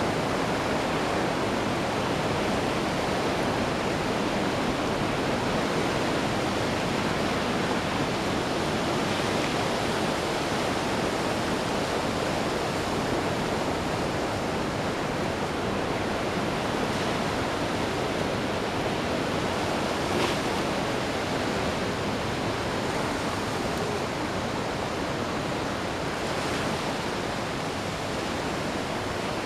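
Ocean surf washing onto a beach, a steady continuous rush of breaking waves.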